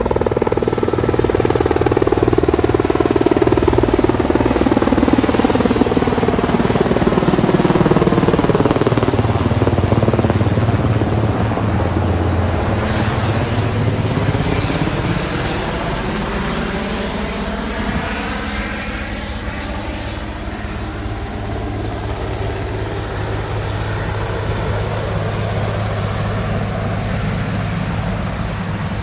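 Marine One and its escort helicopters flying overhead, their rotors and turbines loud over the first ten seconds, with the sound sweeping as they pass. It then eases to a steady drone as Marine One approaches.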